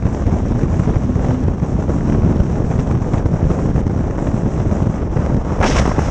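Wind buffeting the microphone of a camera on a moving BMW R 1200 GS Adventure motorcycle, a steady loud rush, with the flat-twin boxer engine running at cruising speed underneath. A short hiss near the end.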